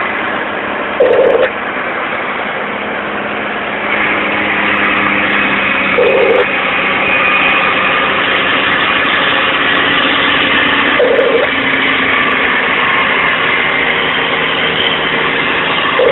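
Mack dump truck's diesel engine running steadily under a load of about 17 tons, heard inside the cab; it grows louder about four seconds in. A short beep repeats about every five seconds.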